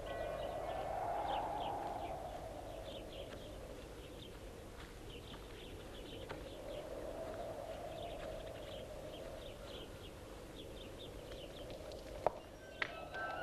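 Small birds chirping in a quick, irregular stream over a steady rushing background that swells and fades. A sharp click comes near the end.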